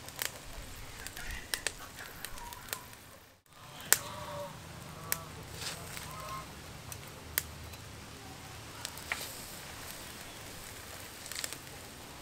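Meat grilling on a wire rack over a fire: scattered sharp clicks and crackles from the fire and the metal tongs, with birds chirping and chickens clucking faintly in the background. The sound drops out briefly about three seconds in.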